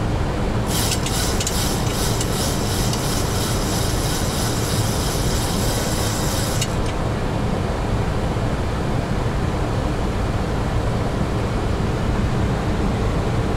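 Steady flight-deck noise of a Boeing 737NG on final approach with gear and flaps down: an even rush of airflow and engine sound heard inside the cockpit. About a second in, a rapid high-pitched rattle joins it for about six seconds and then cuts off suddenly.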